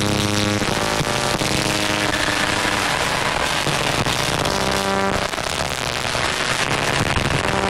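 Electronic noise music: a dense, loud hiss-like wash with held synthesizer tones that fade in and out every second or so.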